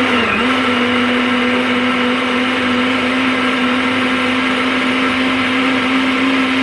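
Countertop jug blender running, its motor giving one steady hum as it purees a green smoothie of lettuce, cucumber, apple, lemon and water that is already liquefied. The pitch dips briefly right at the start, then holds level.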